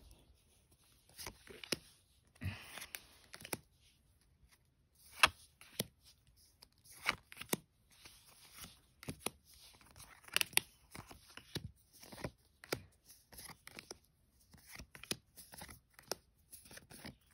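Magic: The Gathering trading cards being handled and sorted by hand: cards sliding over one another and snapping and tapping together, in an irregular run of sharp clicks and short rustles.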